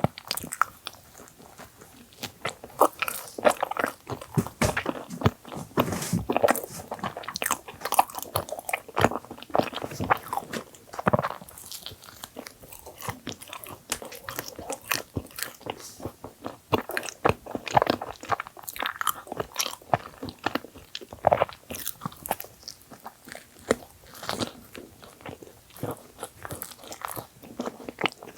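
Close-miked biting and chewing of filled bagel sandwiches: many sharp, irregular crunchy clicks and wet chewing sounds throughout.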